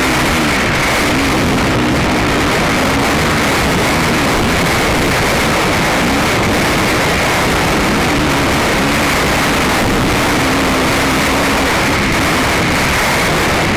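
ATV engine running hard on board the quad, its pitch rising and falling as the throttle opens and closes, with wind buffeting the microphone.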